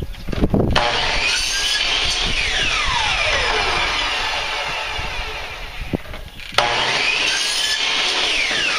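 Hitachi C10FCE 10-inch compound miter saw cutting half-inch Schedule 40 PVC pipe, run twice: its motor starts suddenly about a second in and again about six and a half seconds in, and each time its whine falls steadily in pitch.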